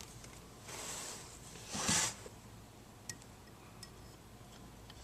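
Two brief scraping sounds, a light one about a second in and a stronger one about two seconds in, then two faint clicks: steel and friction clutch plates of an automatic transmission being slid into the clutch drum.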